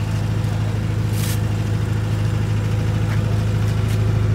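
62.5 kVA four-cylinder diesel generator set running steadily inside its acoustic canopy: a constant low engine hum.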